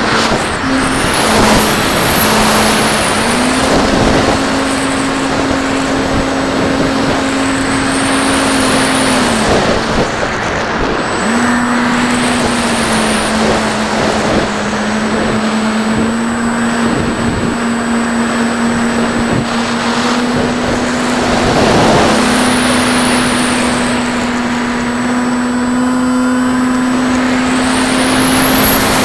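Electric motor and propeller of a Mako FPV flying wing, heard through its onboard camera: a steady droning hum that steps up and down in pitch as the throttle changes, over heavy wind rush.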